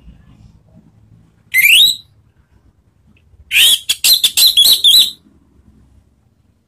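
Orange-headed thrush singing. A short rising whistle comes first. About a second and a half later follows a longer phrase that opens with a rising whistle and breaks into a rapid run of high notes.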